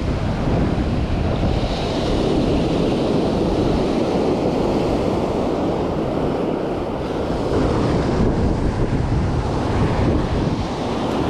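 Surf breaking and washing up a sandy beach, with wind buffeting the microphone.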